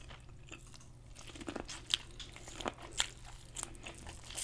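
Close-up bites and chewing of boiled corn on the cob: a string of short, sharp crunches as the kernels are bitten off, starting about a second and a half in.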